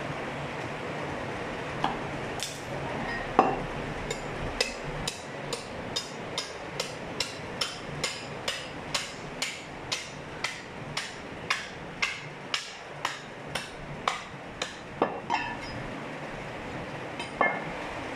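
Butcher's knife chopping through a goat carcass's ribs onto a wooden chopping block: an even run of sharp blows, about two to three a second, with a few heavier knocks near the start and near the end.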